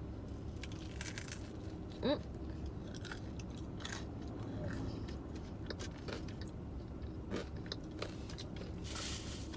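A person biting into and chewing a papa rellena, a breaded, fried stuffed potato ball, with small crunches and mouth clicks scattered through, over a steady low hum. A brief rising hummed sound comes about two seconds in.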